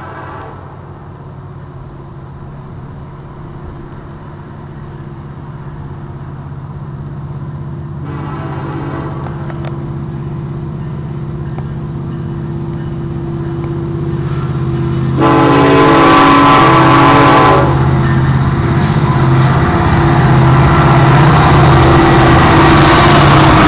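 Florida East Coast Railway freight train approaching and passing, led by diesel locomotive FEC 106. Its horn sounds three long blasts at intervals, the loudest about 15 seconds in. The engine rumble grows steadily louder until the locomotives pass close by near the end.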